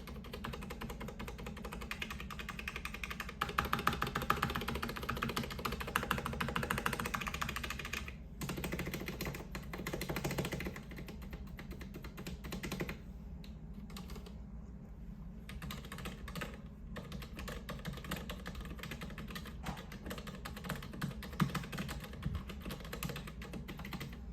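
Typing on a Mistel X-VIII mechanical keyboard with stock Cherry MX Silent Red switches: rapid, muted keystroke clicks, with faster, louder runs in the first half and sparser keystrokes later.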